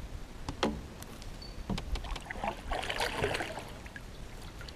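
Kayak paddling: the double-bladed paddle dips and swishes through the water with a splash about three seconds in, and a few sharp knocks come earlier.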